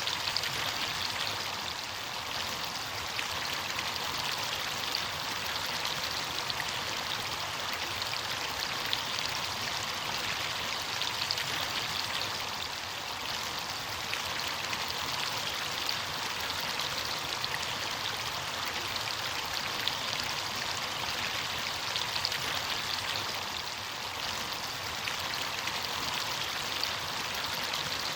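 Running water rushing steadily over rocks, with fine splashing and droplet crackle, like a stream or small cascade.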